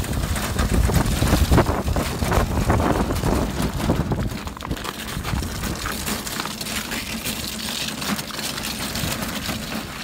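Loaded metal shopping cart pushed over icy, crusted pavement: the wheels rumble and the cart and its load rattle and clatter, louder through the first half and quieter after about five seconds.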